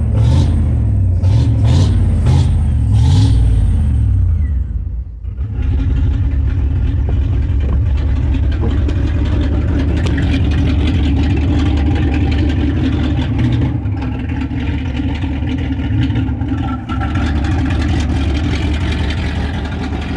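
1998 Dodge Ram 1500's 5.9-litre V8 running after new ignition parts: revved for the first few seconds, a short dip about five seconds in, then running steadily at idle.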